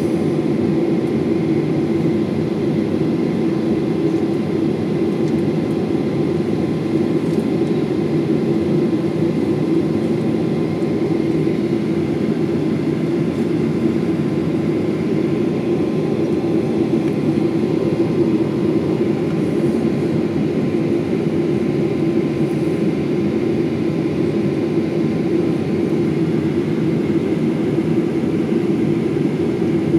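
Jet airliner's engines running steadily, heard inside the passenger cabin: an even rushing noise with a constant hum underneath.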